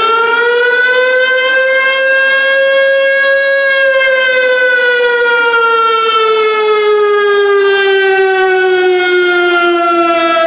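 A siren wailing as one long tone: it winds up quickly, holds its pitch for a few seconds, then slowly winds down. It starts right where the music cuts out.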